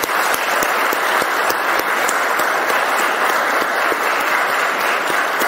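Audience applauding: dense, steady clapping that begins to ease off near the end.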